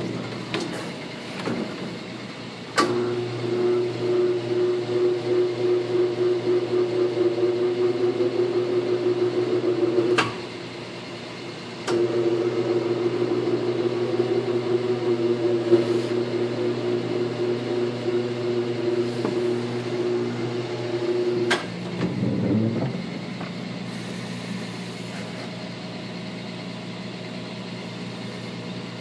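Coats 1001 direct-drive tire balancer spinning a mounted tire twice. Each run starts with a click and goes with a steady tone and a fast, regular pulsing: first from about three seconds in to about ten, then from about twelve seconds in to about twenty-one, when it winds down with a falling whine. A rotary phase converter hums steadily underneath the whole time.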